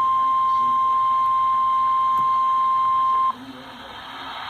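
Emergency alert warning tone for a tornado warning: a single loud, steady beep that cuts off abruptly about three seconds in, announcing the spoken warning that follows. It is the single 1050 Hz weather-radio warning alarm tone, not the two-tone EAS attention signal.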